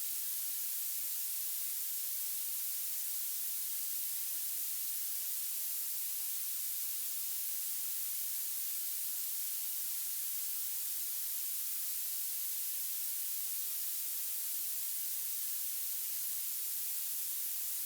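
Violet noise: a steady, even hiss with its energy weighted heavily toward the highest frequencies and almost nothing in the low end.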